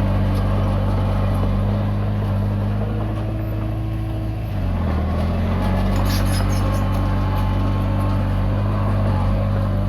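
Komatsu D20P bulldozer's diesel engine running steadily, its pitch dipping briefly about halfway through as it lugs and then picking back up, with light high clicking about six seconds in.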